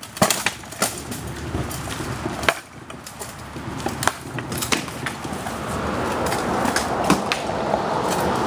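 Armoured sparring with swords and shields: a string of sharp, irregular knocks as blows land on shields and armour. A steady rushing noise builds in the second half.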